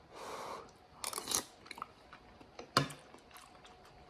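A person eating a spoonful of beef and barley stew: a short soft hiss at the start, then scattered wet chewing clicks.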